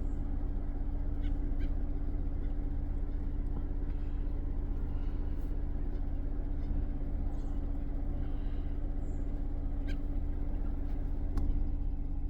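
Steady low hum of an idling car engine, with a few faint, short bird calls scattered over it.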